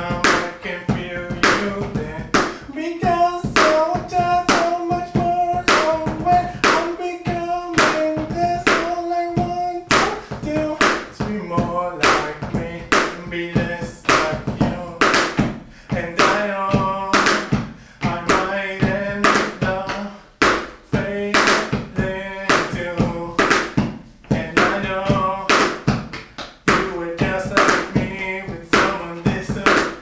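Drums played with sticks, a steady beat of sharp hits, under a man singing a rock song in English, with a long held note a few seconds in.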